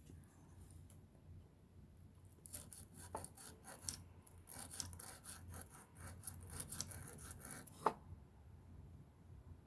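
Sandpaper rubbed by hand on the metal shuttle of a Pfaff Creative sewing machine, in quick irregular scratchy strokes that start about two seconds in and stop about a second before the end, with a sharp tick just before they stop. The sanding smooths a small dent on the shuttle that was scratching the thread and jamming it in the bobbin area.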